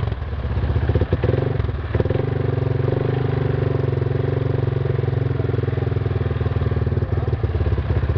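ATV engine idling steadily with an even, throbbing rhythm, with a couple of brief knocks about one and two seconds in.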